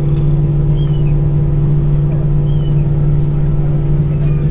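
Airbus A320 engine and cabin noise heard from inside the cabin: a loud, steady drone with a strong low hum over a rumble.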